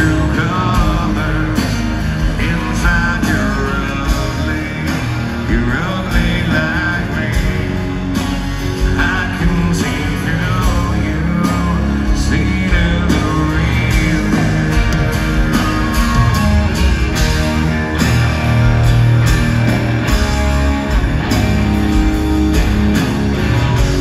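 Live rock band performing a song: a singer's voice over electric guitars, bass and drums, loud and continuous.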